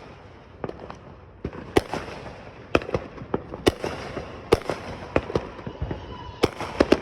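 Fireworks going off in several directions: sharp bangs at irregular intervals over a faint crackling haze, coming faster near the end.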